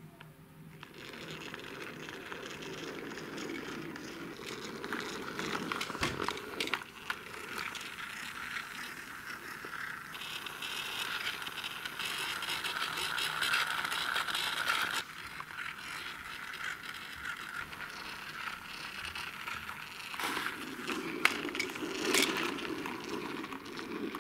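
Plastic toy semi truck rolling as it is pushed across the floor and carpet, its wheels and gearing giving a continuous clicking whirr that changes abruptly several times.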